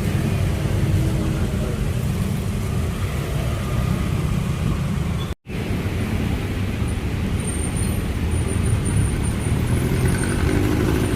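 Steady road traffic rumble from a busy roadside street, briefly cut off about five seconds in.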